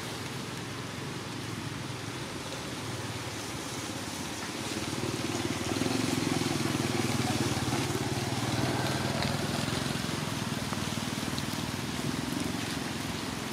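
Steady outdoor background noise, with a low rumble that grows louder about five seconds in and holds.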